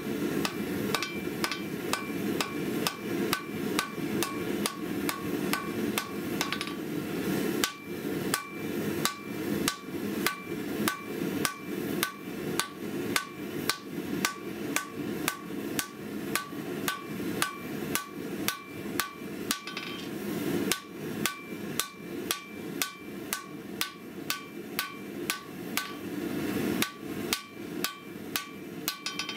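Hand hammer striking red-hot 5160 steel on an anvil while forging the tang of a sword blade. The blows come at about two to three a second, each with a metallic ring, and there are a few brief pauses.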